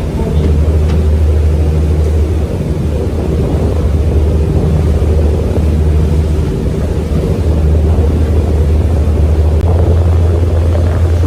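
Sightseeing tour boat's engine running at a steady cruising pitch, a continuous low drone with a layer of rushing noise over it, heard from on board.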